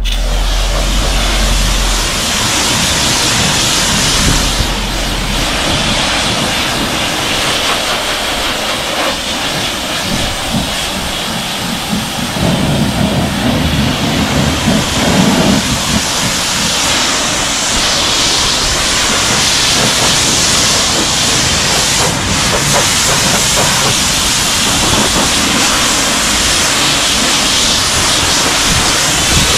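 Steady loud hiss of a pressure washer spraying water, with a deeper rushing for a few seconds around the middle.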